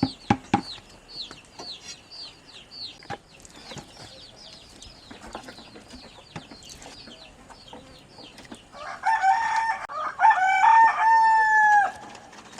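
A rooster crows loudly about nine seconds in, a call of some three seconds ending in a long held note. Before it, a small bird chirps in quick repeated high notes, and a couple of sharp knocks sound right at the start.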